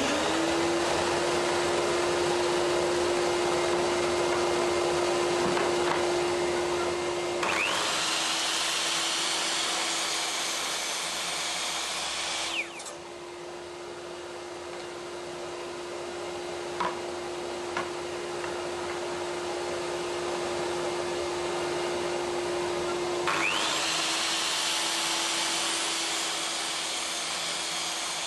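Electric power tool motor running with a steady hum. Twice, for about five seconds each, a louder high hiss joins and the motor's pitch dips slightly, as it does when the tool is loaded by a cut.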